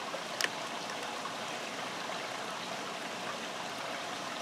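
Steady wash of falling and running water, with a single light click about half a second in.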